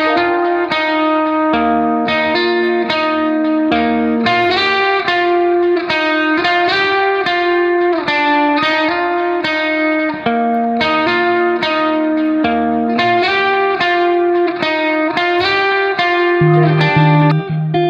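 Background music: guitar playing plucked notes and chords in a steady rhythm.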